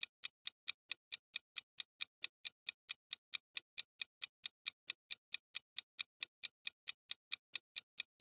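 Ticking clock sound effect marking a quiz countdown timer: short, even ticks at about five a second.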